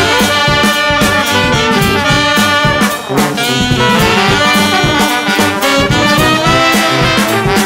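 Brass band jazz music, with trumpet and trombone playing.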